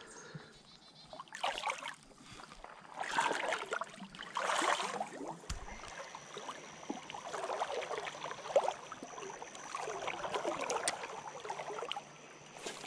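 River water sloshing and swishing around a wader's legs in irregular bursts as he moves through the current.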